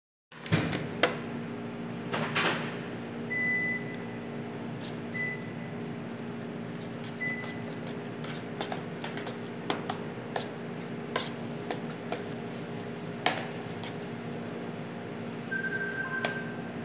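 Steady electrical hum of kitchen equipment, with scattered sharp clicks and knocks and a few short, faint high beeps.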